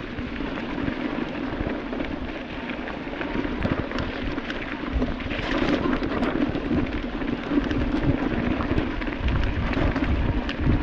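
Electric mountain bike riding over a rough, rocky trail: a steady crunch and rumble of tyres on gravel and stones, with frequent clicks and rattles from the bike.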